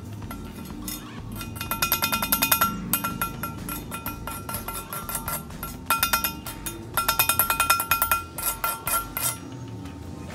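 Welder's chipping hammer rapping slag off a stick-weld bead on steel plate: three bursts of quick metallic taps, about ten a second, each ringing briefly.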